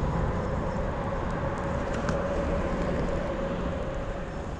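Road traffic rumbling over a bridge: a steady low rumble with a faint even hum that slowly fades near the end.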